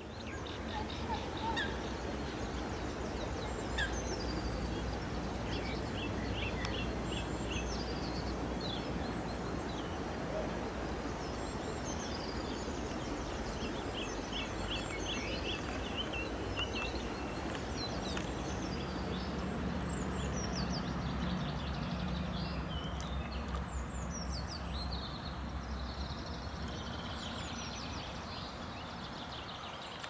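Outdoor birdsong: several small birds singing and calling, with a few quick runs of repeated high notes, over a steady low background rumble.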